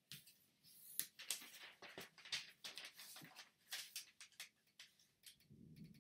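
Sheet of origami paper rustling and crinkling as it is folded and creased by hand, with a folding tool scraping along the crease in quick, irregular crisp strokes.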